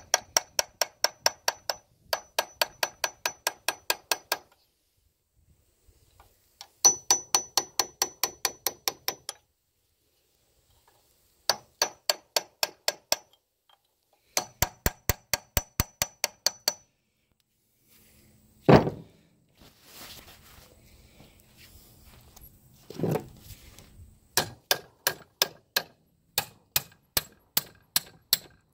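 Claw hammer tapping rapidly on steel at the gland nut of a hydraulic backhoe boom cylinder held in a vise, working the nut loose to take the cylinder apart. The taps come in runs of about five a second, each ringing metallically, with short pauses between runs and two heavier single knocks about two-thirds of the way through.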